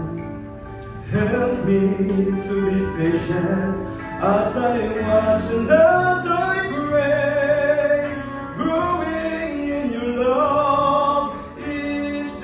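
A man singing a slow gospel song into a microphone, holding long notes with music beneath his voice, with a brief pause between phrases near the end.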